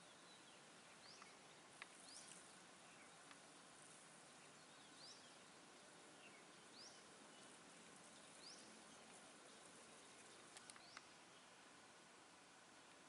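Faint bird chirping: short rising high notes every second or two over a steady background hiss, with a few faint clicks.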